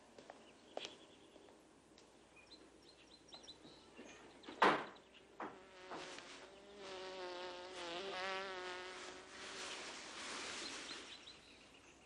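A flying insect buzzing close by: a wavering pitched drone that comes in about five and a half seconds in, grows, and fades away near the end. Just before it there is a single sharp knock.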